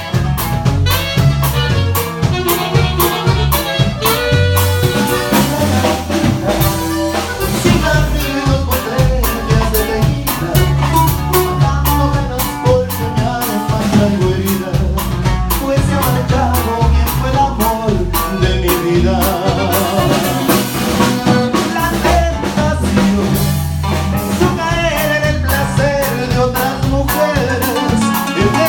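Norteño band playing an instrumental passage with a steady beat, bass and drum kit.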